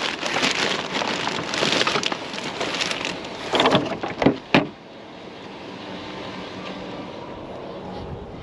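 Rustling and clattering of scrap items being handled and rummaged through, with a few sharp knocks about four seconds in, then a quieter steady low hum.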